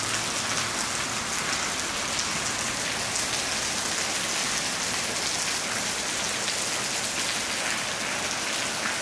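Steady heavy rain falling on a paved street and rooftops: an even hiss dotted with the ticks of single drops.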